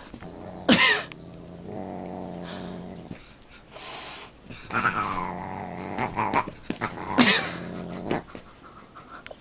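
A dog and a Siamese cat sparring: stretches of low, steady growling broken by short, loud, pitched yowls that rise and fall, about a second in and again around five and seven seconds in.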